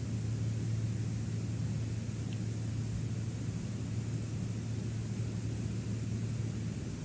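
Steady wind noise on an outdoor cliff-top wildlife-cam microphone: an even hiss over a constant low hum. A faint tick comes about two seconds in.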